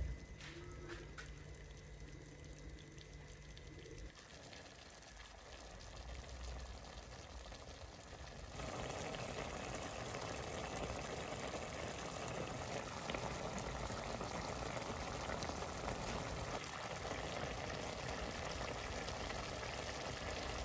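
Pork curry with bamboo shoots simmering in a steel wok, bubbling and sizzling steadily. It is faint at first, with a low steady hum, and gets clearly louder from about eight seconds in.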